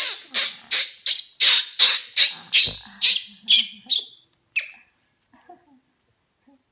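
Baby monkey screaming in a rapid run of about a dozen shrill shrieks, roughly three a second, while it is held down and diapered, then breaking off into a few fainter squeaks.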